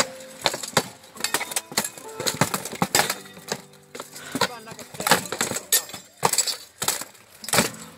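Armoured fighters trading weapon blows on plate armour, helmets and shields in a full-contact buhurt bout: a rapid, irregular series of sharp metallic clangs and knocks, some leaving a brief ring.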